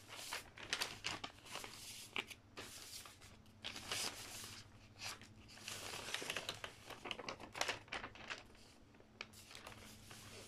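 Faint, irregular rustling and crinkling of a paper notebook page being handled, over a low steady hum.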